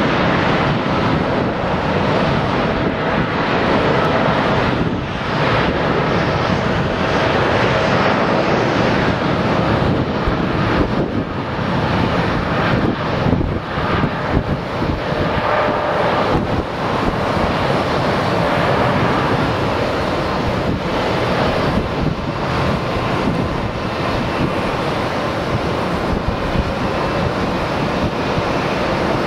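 Boeing 787-8 twin jet engines at takeoff power through the takeoff roll and rotation: a loud, steady rush of noise with faint high whining tones on top.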